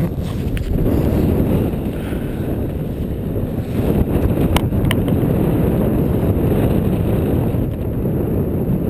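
Wind buffeting an action camera's microphone on an open chairlift ride: a steady low rumbling noise, with a sharp click about four and a half seconds in.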